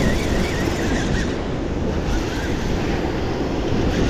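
Ocean surf washing in steadily on a beach, with wind rumbling on the microphone.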